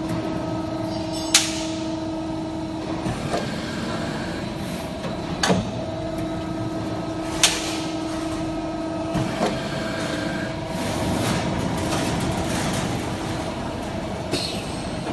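Hydraulic sheet-metal shearing machine running: a steady hum from its hydraulic power unit, with a tone that comes and goes as it works, broken by several sharp metallic clanks as the blade beam cuts and the machine strokes.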